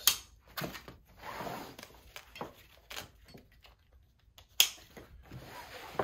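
Nylon webbing shoulder straps being pulled and threaded through their buckles on a rucksack frame set: rustling and sliding of fabric, with two sharp clicks, one at the very start and one a little past halfway.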